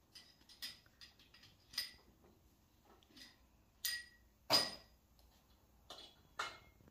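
Scattered light metallic clinks and knocks, about nine, several with a short ring; the loudest comes about four and a half seconds in.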